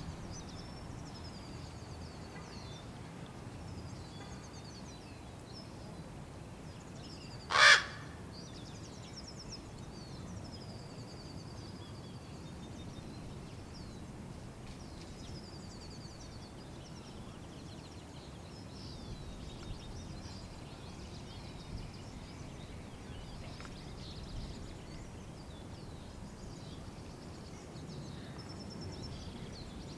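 A fledgling raven gives one short, loud call about eight seconds in, begging to be fed. Faint high chirps continue throughout.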